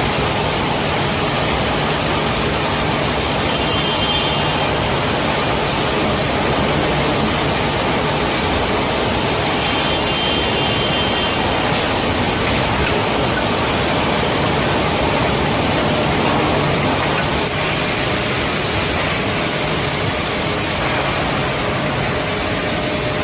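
Servo finger-joint line woodworking machinery running, a loud steady mechanical noise with a faint high tone heard briefly twice.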